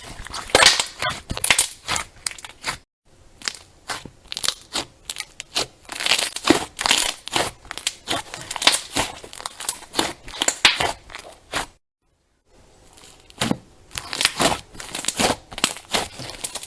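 Crunchy slime being squeezed and pressed by hand, making dense, irregular crackling and popping. There are brief silences about three seconds in and again around twelve seconds in.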